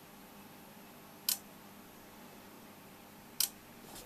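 Relay on a Neff washer-dryer control board clicking twice, about two seconds apart, as the powered faulty board cycles, over a faint steady hum.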